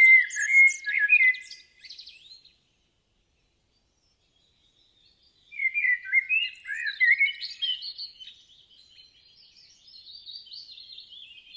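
Birds chirping and singing in quick, high, sliding notes. The song stops dead about two seconds in and starts again about five and a half seconds in, growing fainter after eight seconds.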